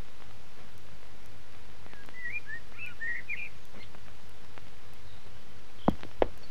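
A small bird chirps a quick run of short, twisting notes for a second or so. Near the end, sharp, evenly spaced clip-clops of a horse's hooves begin.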